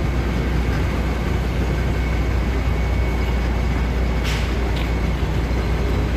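Concrete mixer truck's diesel engine running steadily, a deep drone, with two short sharp noises about four and a half seconds in.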